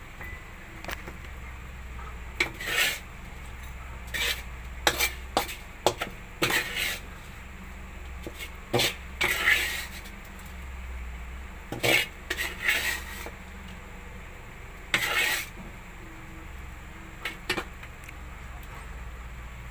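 Metal ladle scraping and clinking against a metal wok while scooping up fried food: about a dozen separate scrapes and knocks with short pauses between them, some of the scrapes drawn out for about half a second.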